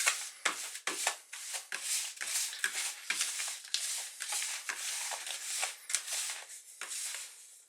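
Dry boilie mix of semolina, soy and corn flour and ground bird feed being stirred in a bowl: quick, irregular scraping and rustling strokes, about three or four a second, that stop shortly before the end.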